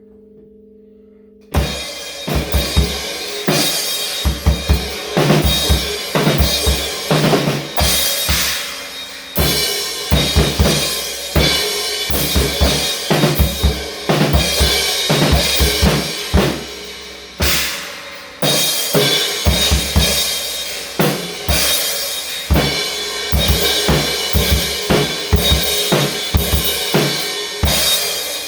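A held low tone gives way, about a second and a half in, to loud music driven by a drum kit, with kick drum, snare and cymbals playing a steady beat.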